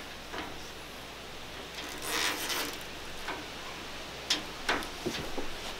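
Spline roller pressing screen spline into a window screen frame's channel. A scraping rub about two seconds in, then several sharp clicks near the end as the roller works along the frame.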